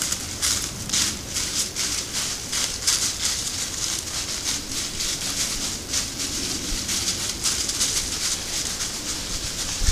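Crackling rustle of dry forest leaf litter: a dense, irregular run of short, high crackles that keeps on steadily.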